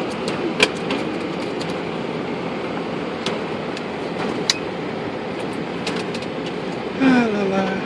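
Steady flight-deck noise of a parked Boeing 747-400, with air-conditioning fans and the APU running as a constant hum, and a few light switch clicks.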